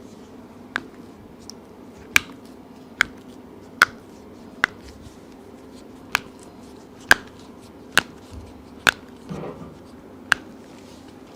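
A series of about ten sharp clicks or snaps, roughly one a second, with a brief rustle near the end, over a steady low hum.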